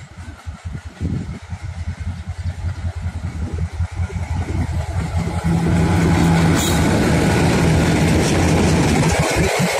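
Twin diesel locomotives of an Indian Railways passenger train chugging as they approach, growing louder, then running loud and steady from about halfway through as they pass close by.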